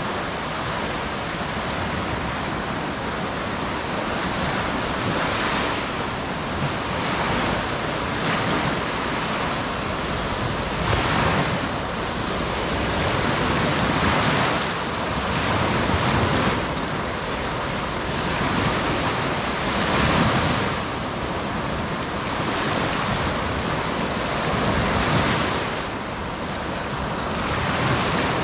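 Sea waves breaking and washing up the beach, the surf swelling every few seconds, with wind rumbling on the microphone.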